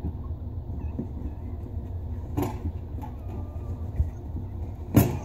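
Handling noise of fingers working a pop-up drain's pivot rod nut onto the drain tailpiece under a bathroom vanity sink, over a steady low rumble. Two sharp clicks stand out, one about halfway and a louder one near the end.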